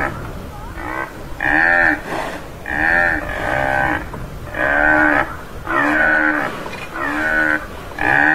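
Tamaraw (Mindoro dwarf buffalo) calling: a run of short calls about once a second, each arching up and then down in pitch.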